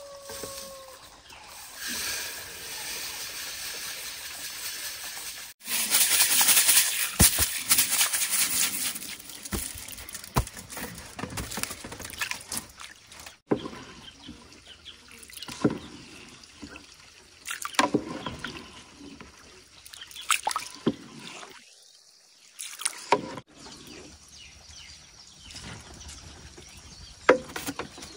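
Rice grains pouring from a woven basket into a wooden bucket with a steady hiss, then water pouring in with a louder rush. After that come intermittent small splashes and knocks as the rice is stirred by hand in the water.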